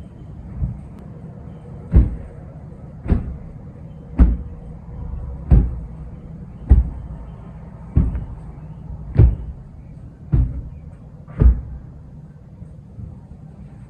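A run of heavy, evenly spaced thuds, about one a second, ten or so in a row, over a low steady hum.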